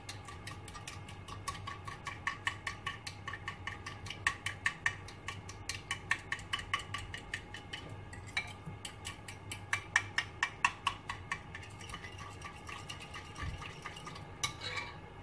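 A utensil beating a French-toast batter of eggs, milk, cream and sugar in a glass bowl, clicking against the glass in quick strokes, about four a second, softening after about eleven seconds. It is being stirred until the sugar dissolves.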